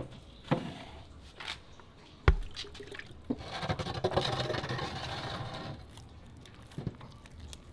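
Wet squelching and sloshing as a wet hand scoops and works soft fufu in a wooden mortar. A few sharp knocks come in between, the loudest about two seconds in, with a busier stretch of wet handling in the middle.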